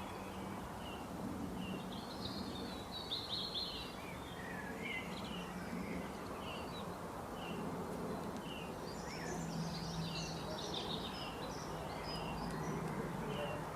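Birds chirping in short high notes, busier about three seconds in and again around ten seconds, over a steady background hiss and low hum.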